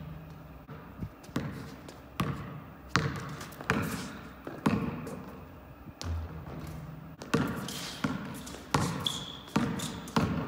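A basketball being dribbled on an indoor court floor: irregular bounces about every half second to a second, echoing in the gym. A short high squeak of sneakers on the court comes near the end.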